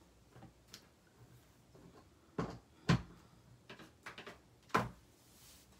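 A few sharp clicks and knocks of hard plastic stamping tools being handled on a tabletop: two louder knocks about three seconds in and near the end, with lighter ticks between.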